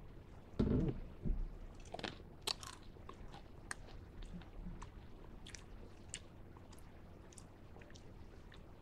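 A person chewing freeze-dried Sweetarts Minis close to the microphone: a string of short, crisp crunches and clicks as the airy candy breaks up and dissolves in the mouth.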